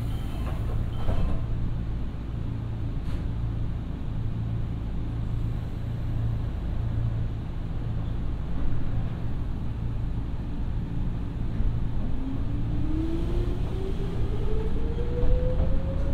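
Inside a Nankai 2200 series electric train: a steady low hum with a few clicks near the start. Then, from about twelve seconds in, the traction motor whine rises steadily in pitch as the train accelerates.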